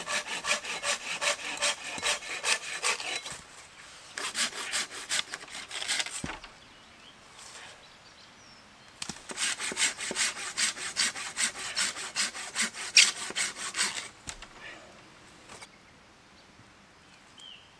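Hand saw cutting through firewood in quick, even back-and-forth strokes, in three bouts with short pauses between.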